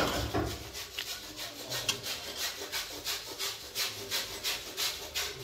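A spatula scraping around a cooking pan in quick, even strokes, about three a second, stirring plum pickle as it simmers.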